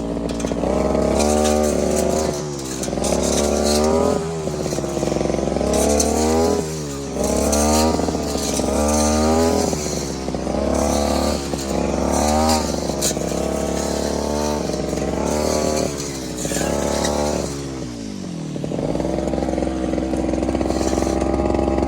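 Brush cutter engine revving up and down over and over as it cuts through thick undergrowth. Near the end it drops back briefly, then runs at a steady speed.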